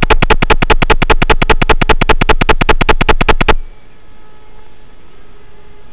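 Loud harsh buzzing that pulses about nine times a second and cuts off suddenly about three and a half seconds in, leaving a low steady hiss with faint thin tones.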